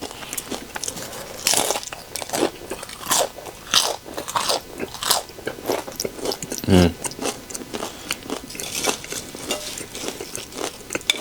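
Close-miked crunching and chewing of microwaved tortilla chips topped with melted cheese, a dozen or so sharp irregular bites and crunches.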